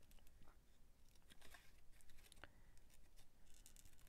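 Small craft scissors fussy-cutting a paper image, making faint, irregular snips.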